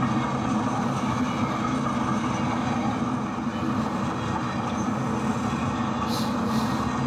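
HO scale model coal train running past, with a steady low diesel-locomotive drone over the rolling of the cars. A brief high hiss comes twice near the end.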